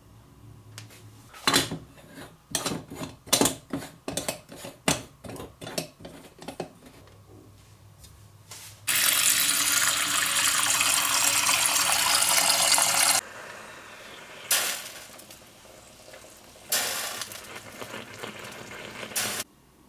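A run of light, quick taps and clicks over several seconds, then tap water running into a stainless steel pot in a loud steady stream for about four seconds. Near the end comes a shorter, fainter hissing rush.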